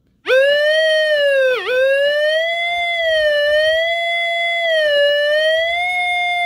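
Minelab Vanquish 540 metal detector's pinpoint tone: one continuous tone that starts a moment in and wavers slowly in pitch, dipping sharply about one and a half seconds in, as the coil picks up metal pipes under the bed.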